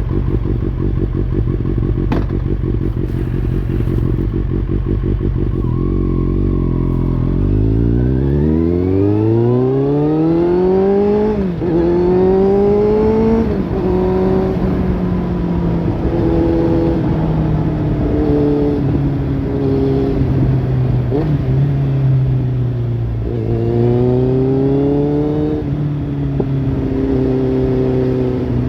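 Kawasaki Z800's inline-four engine through a Lextek slip-on exhaust: running low and steady at first, then climbing in pitch about a quarter of the way in, with two sharp drops in quick succession like upshifts, then holding a steadier note with one more rise and fall later on.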